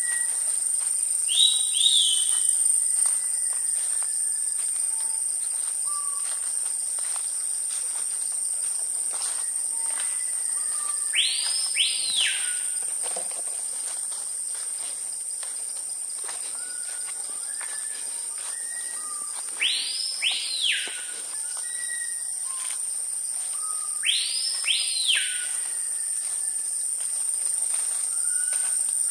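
Tropical forest ambience: a steady high-pitched insect drone with birds whistling over it. A loud double whistle sweeps up and falls away three times, several seconds apart, after a shorter call near the start, with short, softer whistled notes between.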